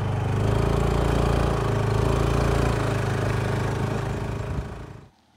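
Small motorcycle engine running at a steady pitch, then cutting out near the end.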